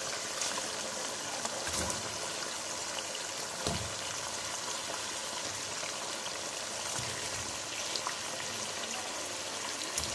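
Honey sauce bubbling and sizzling in a hot wok with a steady hiss. A few soft thuds come as pieces of fried chicken are dropped into it.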